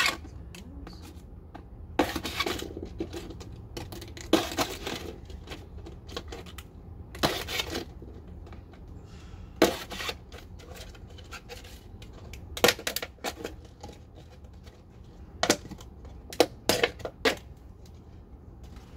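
Scissors cutting through a thin plastic soda bottle, the plastic crackling and crinkling in short irregular bursts every couple of seconds, over a steady low hum.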